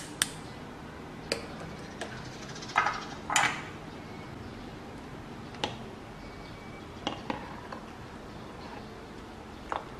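Metal mesh strainer clinking and knocking against a stainless steel pot and bowl while foam is skimmed from boiling water: scattered sharp clicks, with two louder short clatters about three seconds in, over a steady low hiss.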